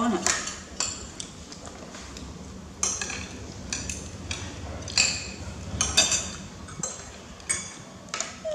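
Metal spoons clinking and scraping against ceramic plates and bowls, a dozen or so irregular clinks.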